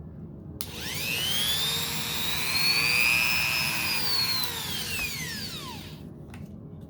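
Rotary tool motor whining as it speeds up about half a second in, running at high speed, then dropping in pitch as it slows and stops about six seconds in.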